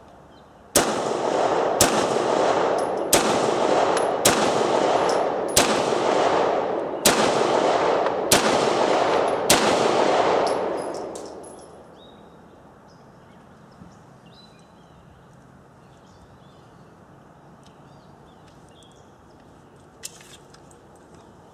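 Beretta 92FS 9mm pistol fired eight times in slow succession, about a shot every second and a quarter. Each report rings on into the next under the range's roof, and the echo dies away about two seconds after the last shot. Near the end comes a faint click of the pistol being handled.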